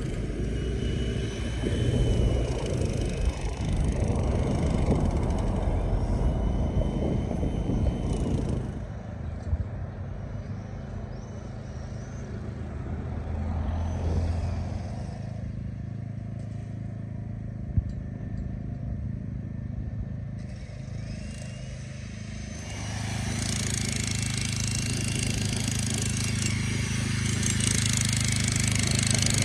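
Vehicle and road-works machinery engines running with a steady low hum, in several edited segments that change abruptly; a single sharp knock about eighteen seconds in.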